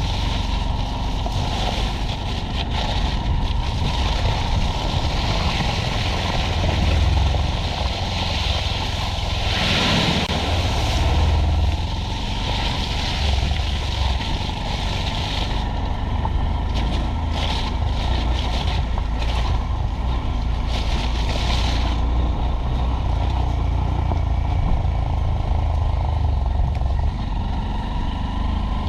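Honda Monkey 125's single-cylinder four-stroke engine running steadily under way on a rough dirt track, mixed with tyre and wind noise. A run of short knocks comes partway through.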